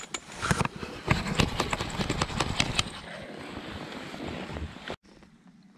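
A fishing landing net being lifted out of the water beside a boat: water splashing and dripping, with a quick run of sharp knocks for about two seconds, then quieter, and the sound cuts off abruptly near the end.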